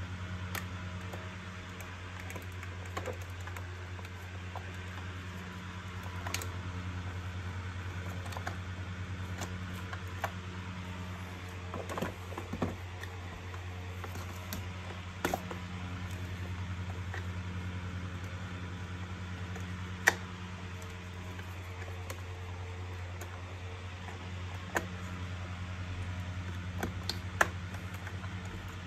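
Scattered clicks and light knocks of a circuit board and the plastic housing of a vacuum cleaner being handled as the board is fitted into place, over a steady low hum. The sharpest click comes about two-thirds of the way through.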